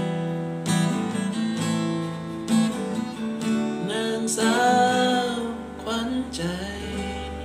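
Acoustic guitar strummed as the song's closing chords, with a few strokes letting the chords ring. A sung line joins over it about halfway through, and the playing dies away near the end.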